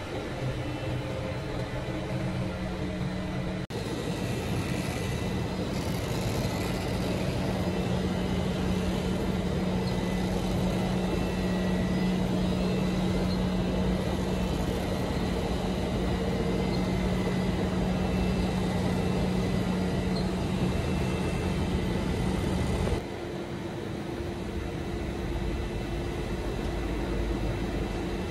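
Steady drone of plastic pipe factory machinery: a running hum with a few faint steady tones. The sound changes abruptly twice, about four seconds in and again near the end.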